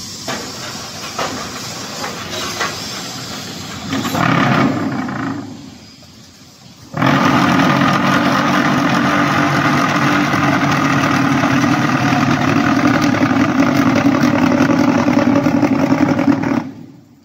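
Concrete block making machine at work: mechanical running with small clanks at first and a louder burst about four seconds in. From about seven seconds a loud, steady vibrating drone sets in, the mould being vibrated to compact the concrete, and it cuts off abruptly near the end.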